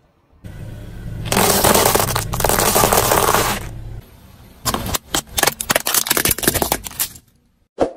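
Car tyre crushing brittle things over the low rumble of the car: first a loud stretch of continuous crunching, then, after a cut, a plastic toy helicopter cracking and snapping under the tyre in a rapid string of sharp cracks, with two last snaps near the end.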